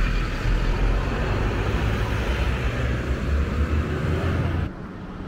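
Road traffic noise from a motor vehicle running nearby: a steady low rumble with a hiss of noise over it, dropping away abruptly near the end.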